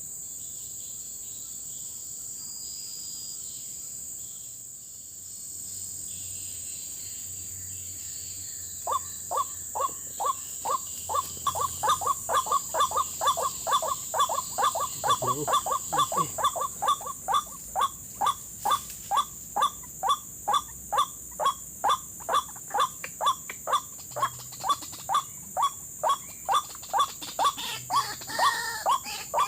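White-breasted waterhen (ruak-ruak) calls starting about nine seconds in: a long, regular run of short repeated notes, about two to three a second, over a steady high hiss of insects.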